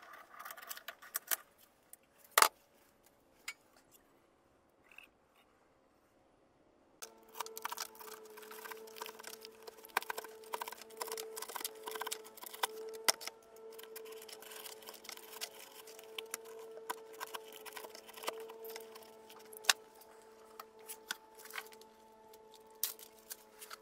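Small metallic clicks and scraping as a spin-on oil filter is cut open with a filter cutter and its pleated paper element is pried out of the steel can, with one sharp click about two and a half seconds in. A steady low tone with overtones joins about seven seconds in and carries on under the clicks.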